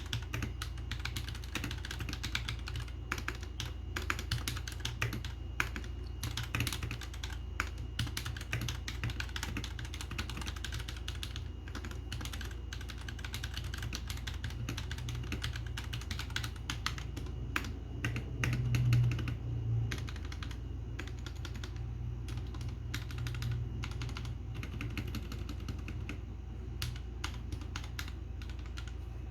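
Typing on a Royal Kludge RK G68 mechanical keyboard with linear red switches: a steady stream of irregular keystrokes. A steady low hum runs underneath, and a brief louder low thud comes about two-thirds of the way through.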